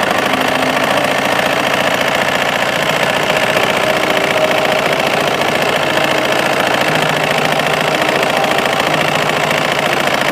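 Domestic sewing machine running fast and steadily, a loud continuous clatter of rapid needle strokes.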